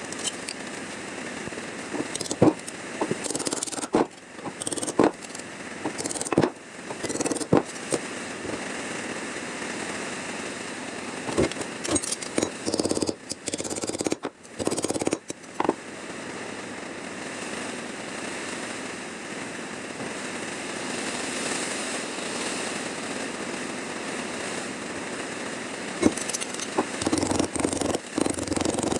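Tools working the sheet-steel rear fender of a car during rust cut-and-patch repair: a steady tool noise that stops and restarts several times, with many sharp clicks and knocks, busiest in the first half.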